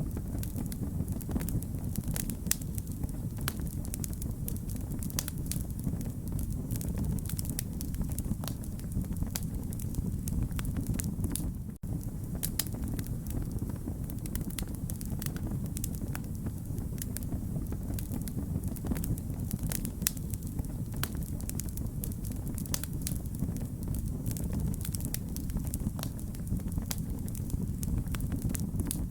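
Wood fire crackling: a steady low rumble of burning with frequent sharp pops and snaps. The sound cuts out for an instant about twelve seconds in.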